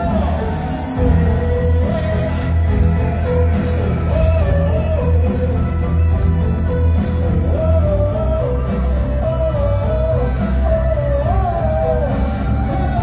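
A live band playing loud music: a heavy, continuous bass and drum layer under a wavering lead melody line.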